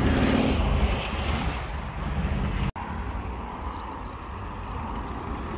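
Steady outdoor rumble and hiss, heaviest in the low end, of the kind made by passing traffic or wind on the microphone. It is louder at first, breaks off for an instant about two and a half seconds in, and goes on more quietly after that.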